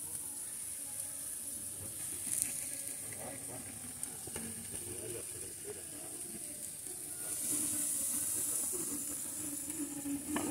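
Meat sizzling on a charcoal grill: a steady high hiss that swells for a couple of seconds about two-thirds of the way through, with a few light clicks.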